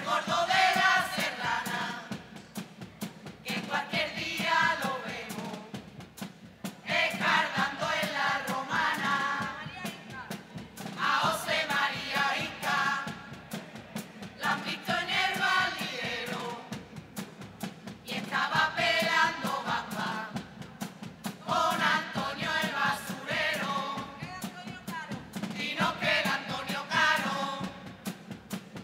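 Carnival murga chorus of men and women singing together in phrases of a few seconds each, with short pauses between them and a steady beat underneath.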